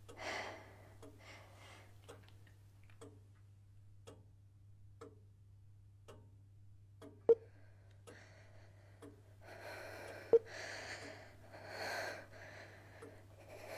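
Faint ticking about once a second, with two sharper clicks a little past halfway and about three-quarters in. A woman's heavy, nervous breathing comes in over the last third.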